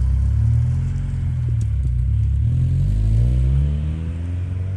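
Acura Integra four-cylinder engine running through a freshly installed Yonaka 2.5-inch catback exhaust and being revved once, its pitch climbing for about a second near the middle before dropping back. The exhaust note is quiet and tame.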